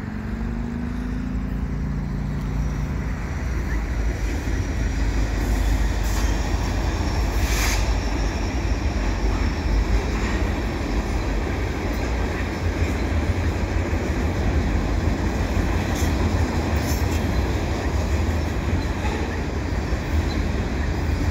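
CN freight train's cars rolling past: a steady low rumble of steel wheels on rail, with scattered sharp clicks and a faint high wheel squeal now and then. A low hum fades out over the first few seconds.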